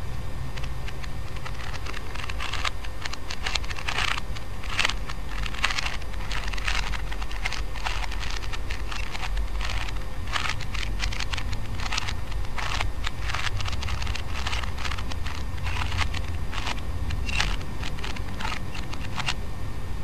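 Rubik's Cube layers being turned quickly by hand: a fast, irregular run of plastic clicks and rattles that grows dense after a couple of seconds, over a steady low hum.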